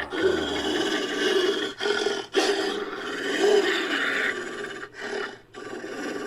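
Made-up creature vocalisation sound effect: a series of harsh, raspy growling roars, broken by short gaps.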